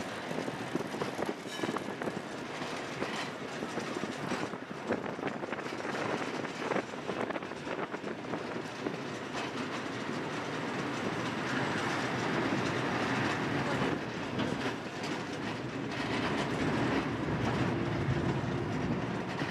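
Vintage tram running along its tracks, its wheels clicking and clattering over the rails. The running noise grows louder and steadier in the second half.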